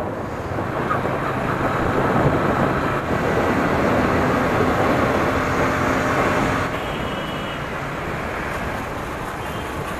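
Motorcycle riding through city traffic: a steady rush of wind and road noise over the low hum of the bike's engine, with other traffic around.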